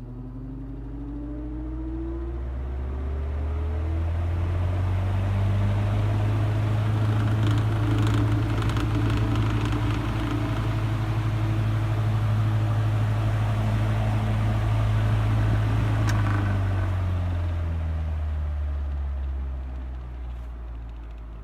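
1950s Mimar MP-416 16-inch table fan starting up from rest on high speed: motor hum and blade air rush build as the tone rises over the first few seconds, then run steady. A click about 16 seconds in is followed by the fan winding down as the blade coasts to a stop.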